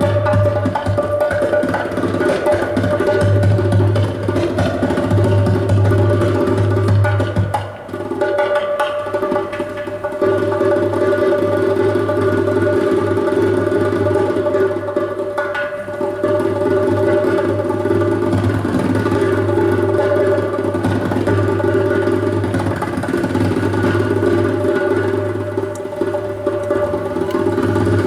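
Live band music: sustained held tones with a low steady bass note under busy hand percussion and drums, from an ensemble of kaval, accordion, double bass, drums and percussion.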